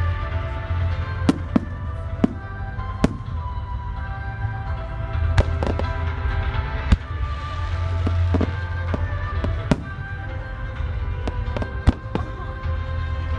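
Firework shells bursting in the sky, about a dozen sharp bangs at irregular intervals, over music playing with a strong bass.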